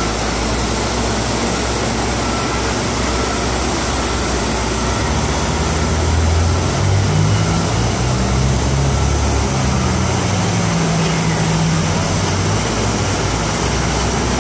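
Steady traffic noise from a busy street, with a heavy vehicle's engine humming low and louder from about five seconds in to about eleven seconds.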